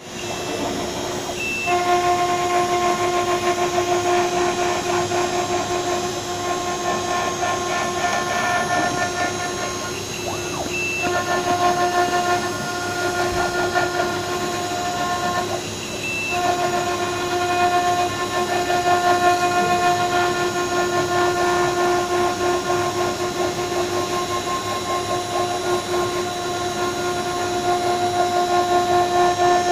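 CNC milling machine's spindle running with a steady whine while its cutter mills brick, over a steady cutting noise. The whine breaks off briefly three times, about one and a half, ten and a half and sixteen seconds in.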